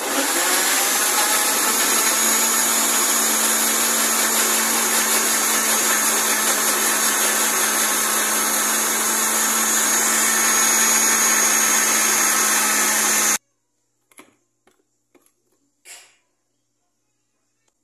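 Arno electric blender running steadily, blending bananas with milk and water into a smoothie, then cutting off suddenly after about thirteen seconds. A few light knocks follow as the jar is lifted off the motor base.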